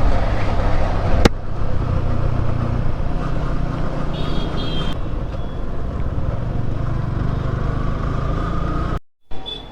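Motorcycle running steadily along the road, its engine and road noise heard from the rider's seat; its chain and sprocket set is worn and noisy, described as going 'khach khach'. A sharp click about a second in and a short high beep a few seconds later; the sound cuts off suddenly near the end.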